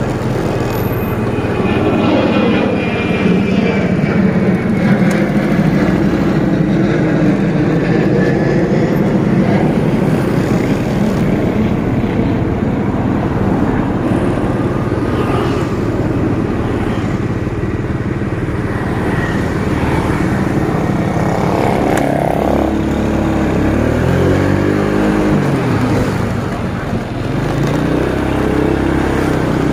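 Motorcycle ridden along a street, heard from the rider's seat: engine running with wind and road noise. The engine note falls as it slows about three-quarters through, then picks up again near the end.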